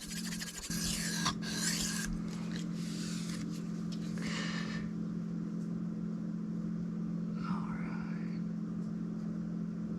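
Knife blade scraping across a whetstone: a quick run of sharpening strokes at the start, then a few separate strokes spread over the rest, over a steady low hum.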